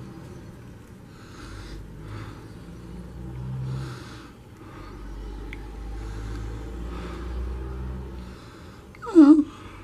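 A person breathing audibly near the microphone, in soft puffs every second or so, over a low rumble. About nine seconds in there is one short, loud squeak that falls in pitch.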